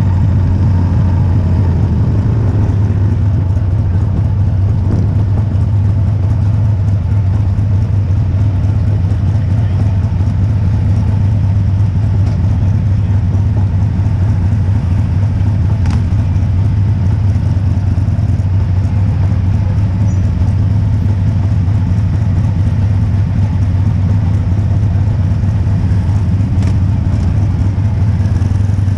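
Motorcycle engine running steadily at low speed with an even low hum, heard close up from the bike that is being ridden.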